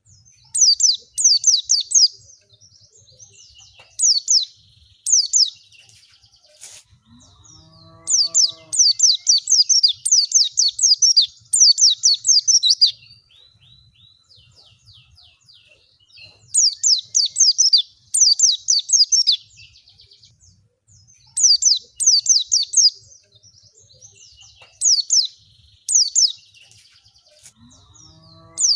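White-eye (pleci) song: repeated high, fast bouts of chattering notes, each bout lasting one to four seconds with short pauses between. A short, lower call sounds twice, about eight seconds in and at the end.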